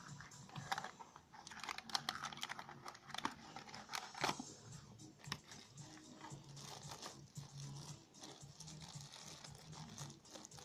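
Packaging being handled and opened during an unboxing of a USB Type-C cable: an irregular run of crinkles and small clicks, busiest in the first four seconds or so and sparser after that.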